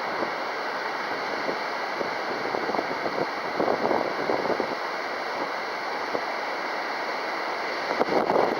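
Wind buffeting the microphone: a steady rushing noise with louder gusts a few seconds in and again near the end.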